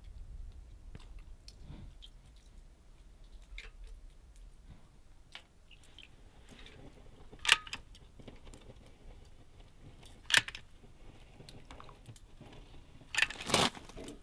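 Hand caulking gun in use: a few sharp clicks from its trigger and plunger rod, roughly three seconds apart with a quick double near the end, among faint small handling sounds as a bead of caulk is run into a siding gap.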